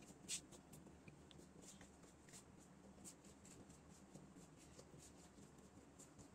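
Faint, soft taps and crinkles of a silicone pastry brush dabbing onto thin sheets of phyllo dough, many light strokes with one sharper tap near the start, over a quiet room background.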